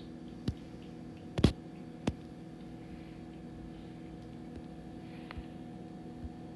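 A steady low hum with a few faint tones in it, broken by a handful of sharp taps or clicks; the loudest is a quick double tap about a second and a half in.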